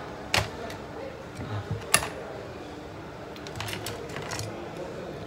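Scattered sharp plastic clicks and taps from laptop case parts and components being handled during disassembly, the loudest one about two seconds in and a small run of lighter clicks near four seconds.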